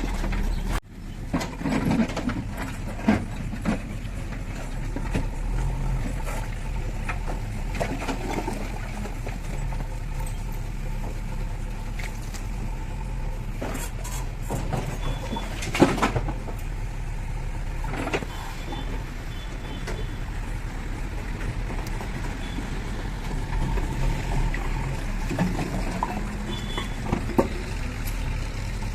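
Diesel engine of a JCB 3DX backhoe loader running steadily while it loads mud, with occasional clanks and knocks, the loudest about 16 seconds in.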